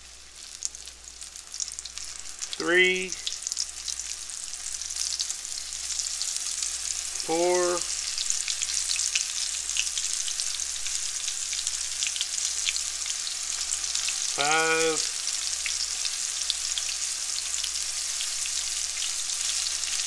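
Flour-dredged axis deer backstrap pieces frying in grease in a cast iron skillet: a steady sizzle with fine crackling that grows louder a few seconds in as more pieces are laid in.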